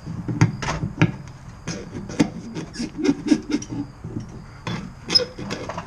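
Irregular clicks, knocks and rubbing of hand work as a rubber hose is pulled and twisted off its fitting on an old pickup's fuel tank, coming away without much of a fight.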